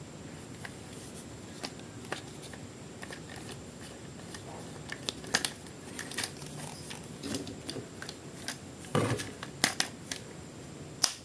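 Hands handling a plastic toy package and action figure: scattered clicks, taps and light crinkles, sparse at first and busier in the second half, with a louder knock about nine seconds in.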